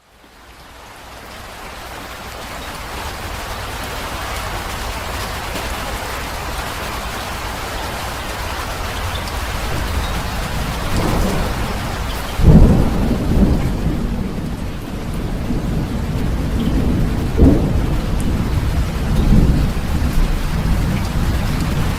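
Heavy rain falling steadily, fading in over the first few seconds. About halfway through a clap of thunder breaks into a low rumble, followed by further rumbles near the end.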